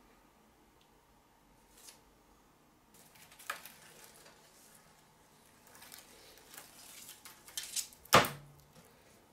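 LED strip being handled and laid along an aluminium strip: light rustling and small clicks from about three seconds in, with a sharp tap a little after eight seconds.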